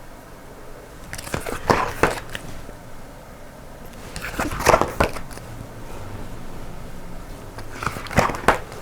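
Isolated alphabet letter sounds spoken one at a time as phonics responses, short hissy and clipped consonant sounds rather than words, in three brief groups: about a second in, around the middle, and near the end.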